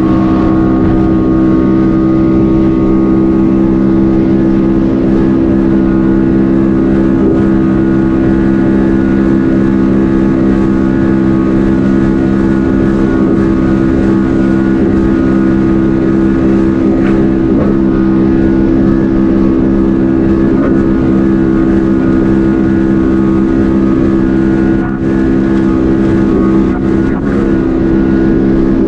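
Yamaha WaveRunner engine, fitted with a Riva power intake kit, running under way at a steady throttle; its note holds an almost constant pitch, with a couple of brief dips near the end.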